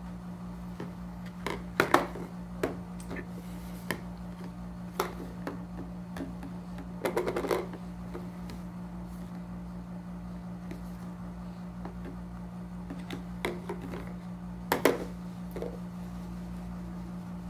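Plastic stacking rings clicking and knocking against a high chair's plastic tray as they are handled and patted. The taps are scattered, with a short run of rapid clicks partway through and a few louder knocks near the end, over a steady low hum.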